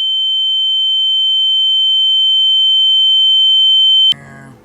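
A steady, high-pitched electronic beep: one pure tone that grows steadily louder, then cuts off suddenly near the end.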